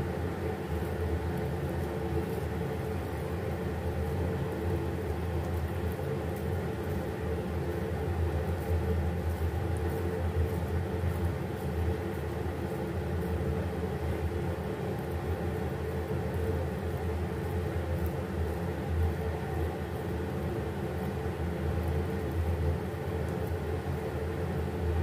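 A steady low mechanical hum, with no break or change.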